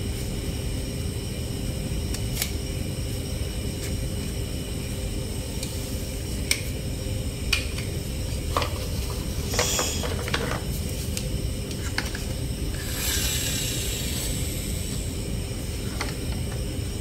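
Plastic toy trucks being handled: scattered light clicks and knocks of plastic parts and a short scraping rustle about thirteen seconds in, over a steady low hum.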